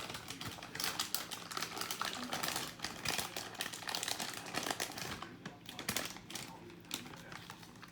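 Old 42-inch hugger ceiling fan giving rapid, irregular clicking and rattling over a steady low hum.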